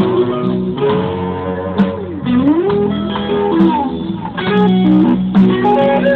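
Live band playing an instrumental passage through a PA: an electric guitar plays melodic lines with sliding, bent notes over a steady bass line, with a few sharp drum or cymbal hits.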